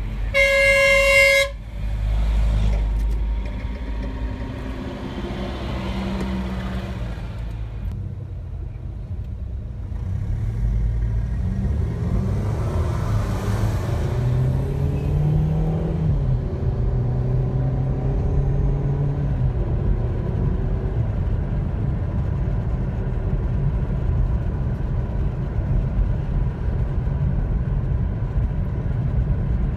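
A car horn toots once, loud, for about a second at the start. Then comes a car's engine and road noise heard from inside the cabin. The engine note rises twice as the car accelerates and then settles into a steady cruise.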